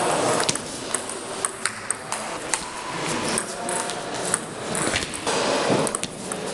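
Table tennis rally: the ball clicking off the bats and bouncing on the table in a quick, irregular series of sharp ticks, over the steady background noise of a sports hall.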